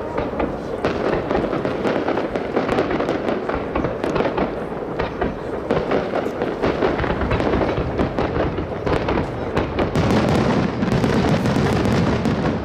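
Fireworks bursting in a dense, continuous barrage of bangs and crackle, getting louder about ten seconds in.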